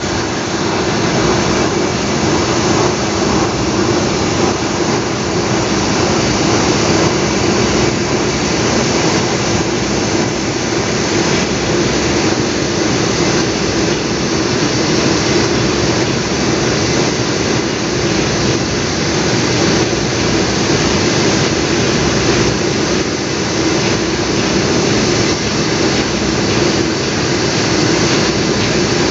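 DDGS dryer running, its paddle shaft churning distillers' grain in the trough: a steady, loud machine hum and rush that does not change.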